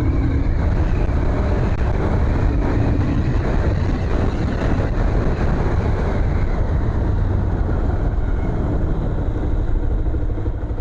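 Bajaj Pulsar 220F's single-cylinder engine running while the motorcycle is ridden along, under a heavy, steady rush of riding wind on the microphone.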